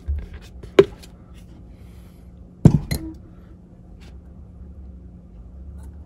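Sharp metallic clicks and knocks from brass water-strainer fittings being handled: one click about a second in, then a louder double knock near the middle, over a low steady hum.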